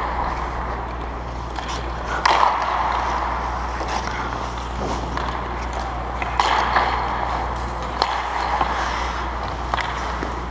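Ice hockey skates scraping and carving on rink ice, with two louder scraping surges about two and six and a half seconds in, and a few sharp clicks of sticks and pucks. A steady low hum runs underneath.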